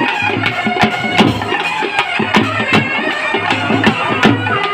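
Live South Indian folk music: large double-headed drums beating a steady fast rhythm under a high, reedy melody line.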